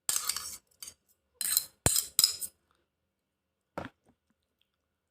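Utensils clinking and scraping against a bowl in several short bursts, then a single soft knock a little later.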